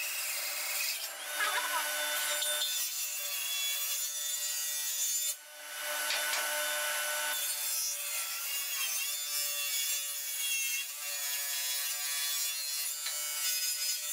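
Table saw running with a steady whine while its blade cuts through a strip of wood in a test cut, with a brief dip in the noise about five seconds in.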